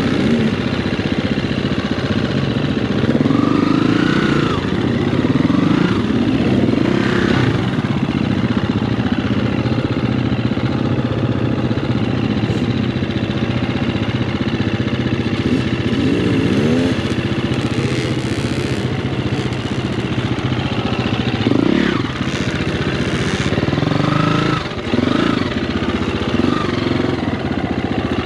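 Dirt bike engine running under way, revving up and down with the throttle, its pitch rising and falling several times.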